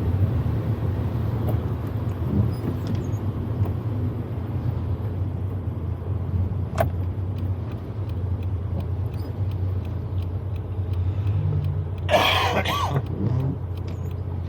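Proton Wira 1.5's four-cylinder engine running steadily, heard from inside the cabin. A single sharp click comes about seven seconds in, and a short harsh cough from the driver about twelve seconds in.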